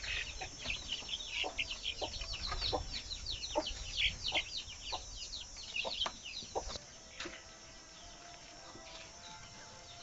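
Chicks cheeping rapidly in high, falling peeps, with short low clucks among them. The peeping dies away about seven seconds in.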